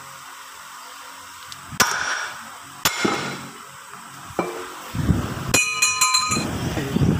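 Hammer blows on the steel planetary final-drive hub of a John Deere tractor. There are three sharp, ringing metal strikes about a second apart, then a longer metallic clang with several ringing tones about five and a half seconds in, over low rumbling noise.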